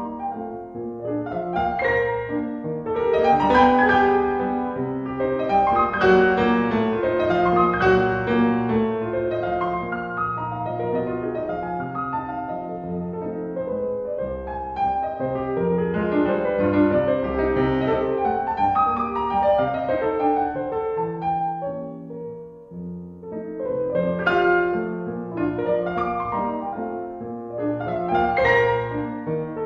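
Piano music with many notes moving in quick succession, easing off briefly about two-thirds of the way through.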